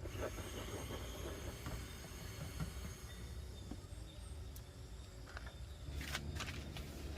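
Outdoor ambience: a steady low rumble with a faint high insect drone, and a few soft knocks about six seconds in.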